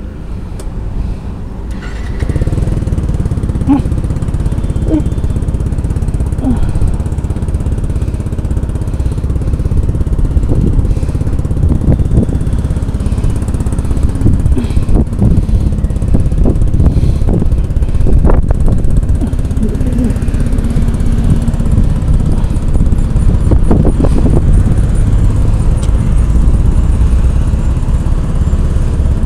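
Yamaha X-Max scooter's single-cylinder engine starting about two seconds in, then running steadily at low revs, with a few short clicks along the way.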